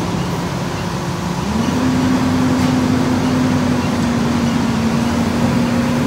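Caterpillar mini excavator's diesel engine running, its pitch stepping up about one and a half seconds in and then holding steady while the boom and bucket work.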